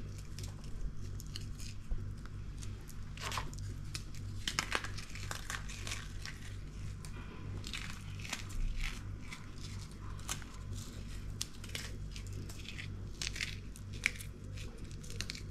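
Lotus Biscoff biscuits being crushed and crumbled between the fingers: a run of small, dry, irregular crackles.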